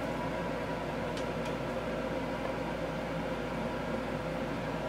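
Steady kitchen machine hum, with two faint taps of a stirring spoon against a pot about a second in.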